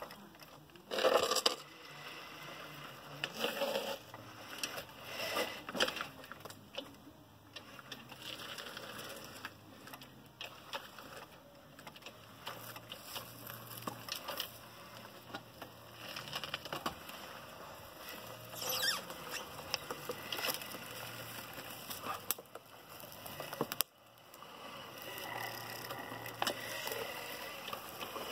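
Electric tracked robot chassis driving over concrete and dry grass: the rubber tracks rattle and crunch, with a low motor hum that comes and goes and a few louder bursts in the first six seconds.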